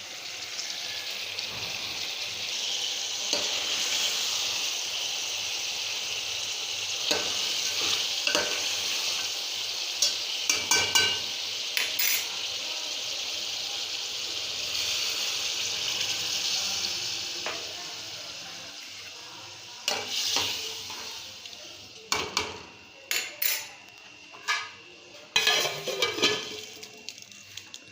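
Curry frying and sizzling in a hot pan while a spoon stirs it, scraping and clinking against the pot. The sizzle dies down about two-thirds of the way through, leaving a quick run of sharp spoon knocks on the pan near the end.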